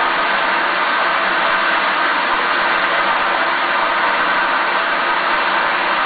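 Mountain waterfall: a loud, steady rush of water cascading down.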